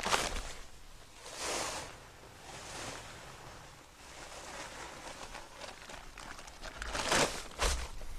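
Shovel scooping and tossing dirt into a post hole, in a few separate rushing scrapes, the loudest near the start and two more close together near the end.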